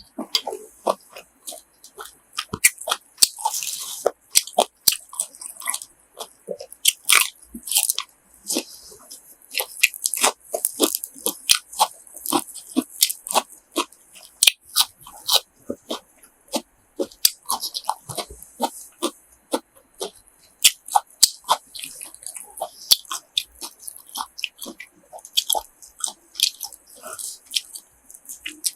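Close-miked eating of grilled pork offal: repeated bites, crunching and wet chewing in quick, irregular succession.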